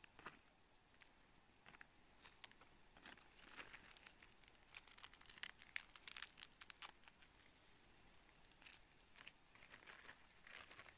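Faint, irregular rustling and crackling of leaves and twigs, busiest in the middle, as star anise branches are handled during picking.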